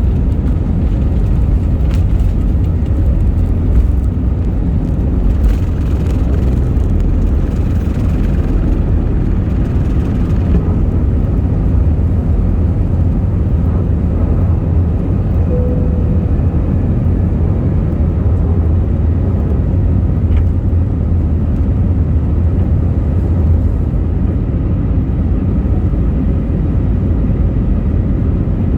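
Passenger jet's engines and airflow during takeoff: a steady, loud low rumble that holds unchanged, with a faint high hiss that fades about ten seconds in.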